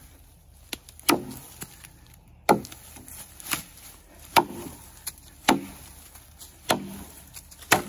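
A new Lamaca bushcraft axe chopping into a felled birch trunk: seven sharp blows, about one a second.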